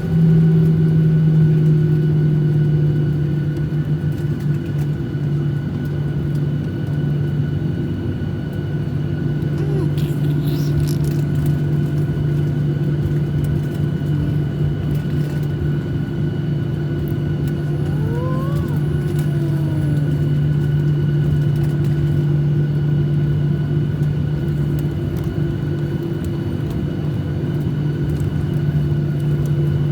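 Steady engine and air-conditioning hum inside the cabin of a Boeing 737-800 airliner, a low even drone with fainter steady tones above it. A faint whine rises and falls briefly about two-thirds of the way through.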